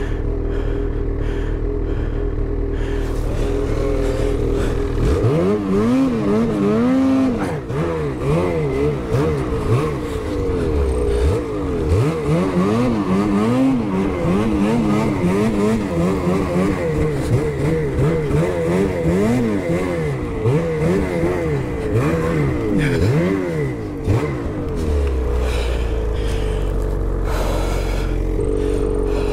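Ski-Doo snowmobile engine running at a steady speed, then revved up and down over and over for about twenty seconds before settling back to a steady run.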